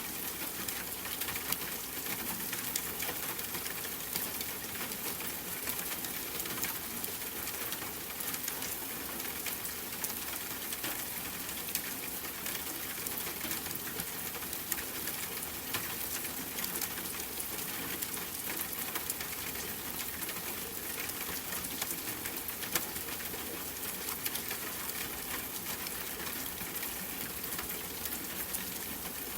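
Steady rain patter: an even hiss full of fine, irregular drop ticks.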